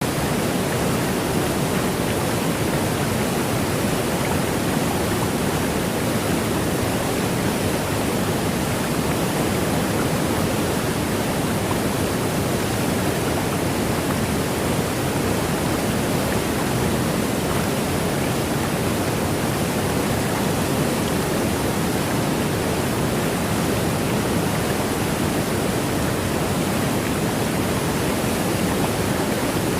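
Steady rush of a tall indoor waterfall, the 40-metre HSBC Rain Vortex, its water falling and crashing into the pool below.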